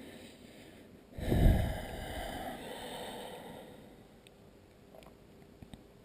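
A person's heavy breath close to the microphone: a sudden low puff about a second in, then a breathy hiss that fades over about three seconds.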